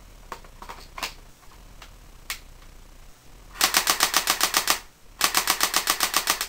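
Airsoft G36 rifle firing full-auto: two bursts of rapid, evenly spaced shots, about a dozen a second. The first burst lasts about a second, and the second starts about five seconds in. A few single clicks come before the bursts.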